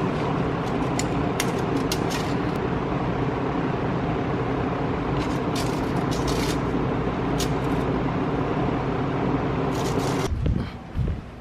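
A motor-driven machine running steadily, with scattered sharp ticks and clicks over it. It shuts off abruptly near the end, followed by a couple of dull thumps.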